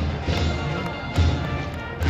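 Brass band and drums in the stands playing cheering music, held brass notes over a steady drum beat, with crowd noise underneath.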